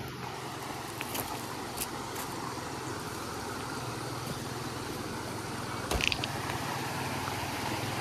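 Steady rush of flowing water from a stream or waterfall, with a sharp click about six seconds in.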